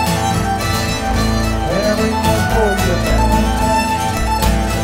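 Live contra dance music: a Swedish nyckelharpa bowing the melody over a baritone guitar accompaniment.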